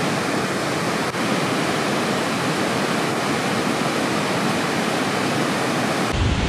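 Steady rushing of a mountain stream over a boulder riverbed, an even hiss with no rhythm. Near the end a low wind rumble on the microphone comes in.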